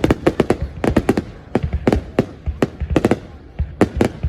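Fireworks bursting overhead in a dense, uneven barrage, several sharp bangs a second, each with a brief echoing tail.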